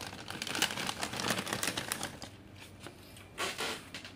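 Plastic packaging crinkling as a pet-snack sachet is handled. There is a dense run of crackly rustling for about two seconds, then two short rustles near the end.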